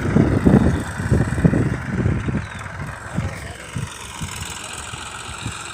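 Tractor engine running during paddy threshing, driven over rice sheaves spread on the ground. Its low, uneven chugging fades about halfway through.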